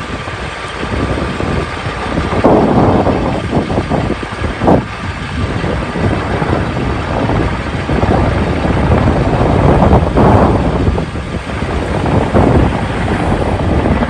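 Heavy wind buffeting the microphone in irregular gusts, over the running of a firefighting helicopter flying past with a water bucket slung beneath it.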